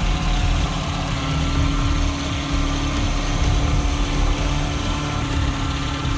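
Heavy machine's engine running steadily: a constant hum over a low rumble.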